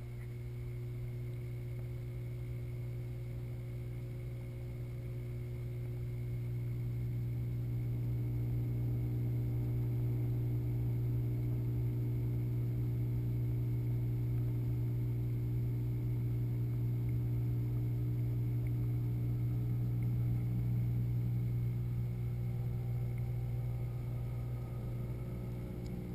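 Steady low hum of an aquarium circulation pump, heard through the water by a camera submerged in the saltwater tank, with fainter steady tones above it.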